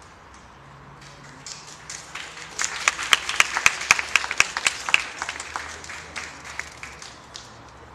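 Applause from a small audience: a few claps about a second and a half in, growing to quick clapping, then thinning out to scattered claps near the end.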